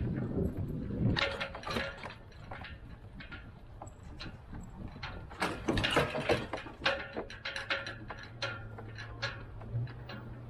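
Irregular clicks, knocks and rattles from a rigged Windrider 17 trimaran and its trailer as it is towed slowly over pavement, bunched about a second in and again around six seconds in. From about eight seconds a steady low hum sets in.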